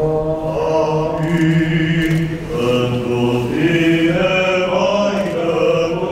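Orthodox church chant: voices singing a slow hymn melody over a steady held low note.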